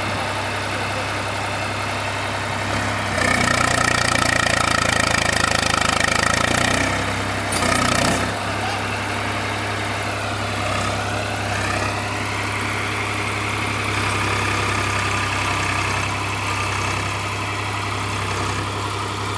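Swaraj 834 XM tractor's three-cylinder diesel engine idling steadily. It runs louder for a few seconds from about three seconds in, and there is a short rush of noise near eight seconds.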